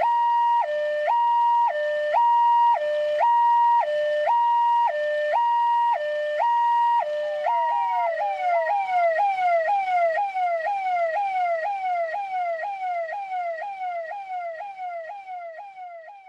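Electronic police siren sounding a two-tone hi-lo pattern, switching about once a second between a high and a lower pitch. About 7 seconds in it changes to rapid, repeating falling sweeps, about three a second, and fades out near the end.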